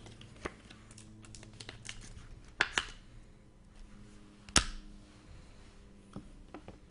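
Trading cards being handled on a table: light crinkles and rustles with scattered sharp clicks, the loudest about two-thirds of the way through.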